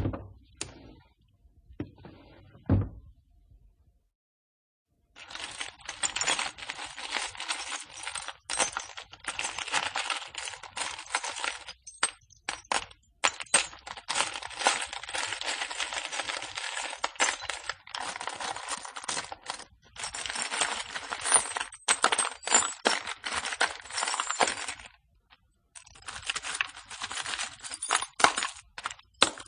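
Screws and nails clinking: a few separate clinks, then after a short pause a long, dense clatter of many small metal pieces knocking together, with a brief break a few seconds before the end.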